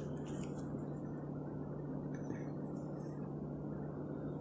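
Steady low hum and hiss of room tone, with a few faint light taps.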